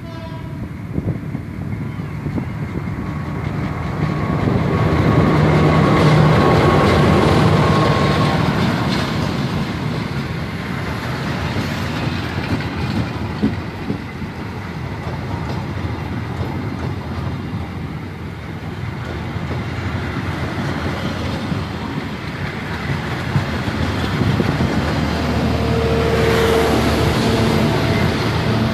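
Passenger train hauled by a CC201 diesel-electric locomotive passing close: the engine swells as it goes by, then the coaches roll past with a clickety-clack over the rail joints. Near the end a second diesel-electric locomotive, a CC206, comes up on the next track, and a locomotive horn sounds for about a second and a half.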